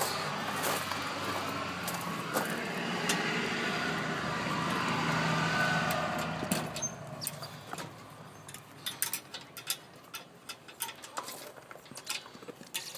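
A steady mechanical hum slowly swells and then fades out about seven seconds in. After that come irregular light footsteps and clicks along a concrete path.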